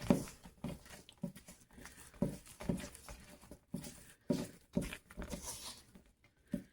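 Spoon stirring thick chocolate bread batter in a mixing bowl: an uneven run of soft strokes and squelches, about two a second.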